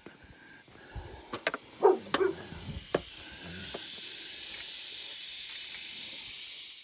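A few light metal clicks and clinks from a socket and extension being handled on the engine, then a steady high hiss that swells over a couple of seconds, holds, and cuts off abruptly at the end.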